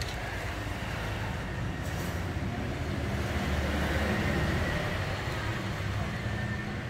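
Low, steady rumble of a vehicle engine, growing louder about halfway through and then easing off.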